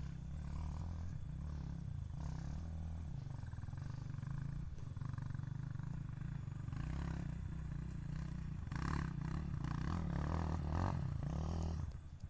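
Trail motorcycle engine running at low revs, its low rumble rising and easing, a little stronger in the second half.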